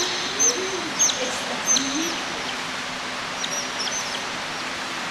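Otters giving short, high-pitched chirps that fall in pitch, repeated several times in the first couple of seconds and again in a quick run midway. Low voices can be heard underneath in the first two seconds.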